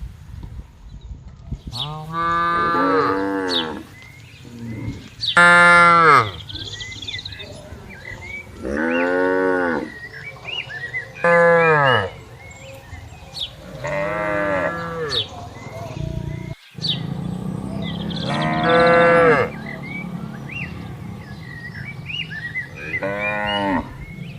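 Cattle mooing: about seven long moos spaced a few seconds apart, each lasting a second or so, with the pitch rising and then falling within each call.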